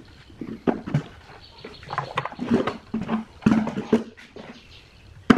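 Hard plastic subwoofer housing being pulled apart and handled on a wooden bench: irregular knocks, scrapes and creaks of the plastic shell, with one sharp knock near the end.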